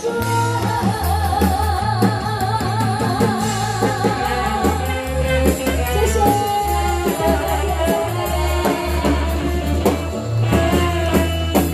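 Female singer performing a Taiwanese Hokkien pop song live into a microphone, backed by a band with drum kit and saxophone playing a steady beat. A long note is held with wide vibrato for about three seconds near the start.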